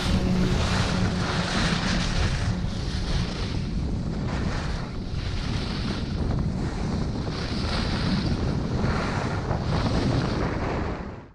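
Wind buffeting the microphone of a camera skiing fast down a groomed piste, with the hiss of skis carving the snow rising in surges about once a second with each turn. It cuts off suddenly at the end.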